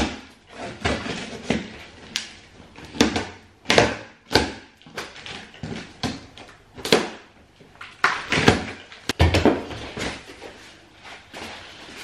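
Large cardboard box being cut open with a knife and its flaps pulled apart: irregular scraping, ripping and knocking of cardboard.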